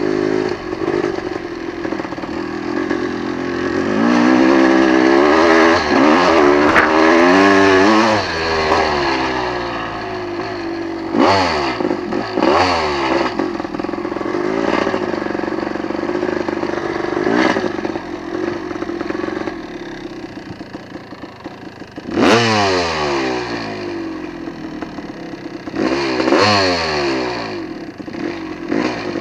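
Off-road vehicle's engine heard from on board, revving up and down as the throttle is worked, with several sharp blips of the throttle in the second half.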